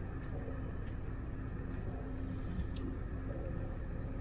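Steady low rumble of a cruise ship's onboard machinery with a faint steady hum, heard inside the ship.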